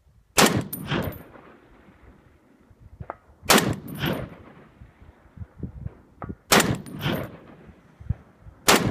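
Four shots from a GA Precision GAP 10 semi-automatic .308 rifle firing Federal 168-grain Match ammunition, roughly three seconds apart with the last coming a little quicker. Each sharp report is followed about half a second later by a second, softer boom.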